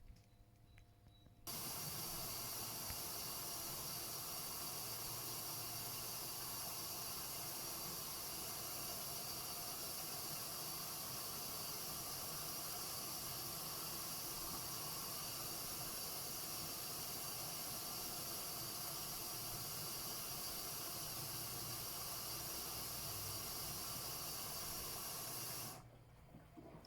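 Gorenje UseLogic 65165 washing machine taking in water: the inlet valve opens with a steady hiss of water rushing through the detergent drawer, starting suddenly about a second and a half in and shutting off abruptly near the end.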